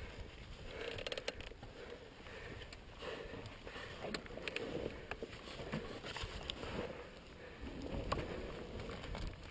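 Yamaha YZ450F dirt bike sliding down a steep slope of loose dirt and gravel: tyres crunching and skidding, with irregular rattles, clicks and creaks from the bike.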